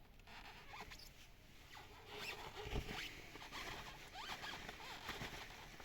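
Faint, irregular squeaks and small clicks of hands handling greasy CV joint parts.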